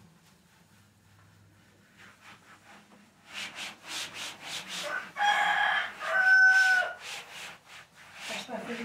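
Cloth wiping a refrigerator door in quick rhythmic strokes, and a rooster crowing loudly about five seconds in, in two long pitched notes, the second falling off at its end.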